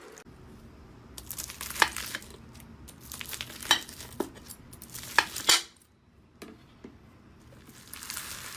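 Slime being squeezed and pressed by hand, giving irregular crackling with a handful of sharp pops as trapped air bursts.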